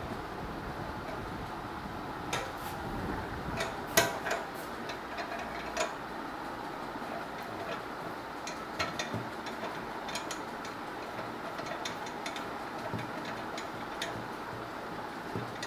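Scattered metallic clicks and taps as the stainless steel arm and clamp of a Leyla retractor are handled and adjusted, the loudest about four seconds in, over steady background noise.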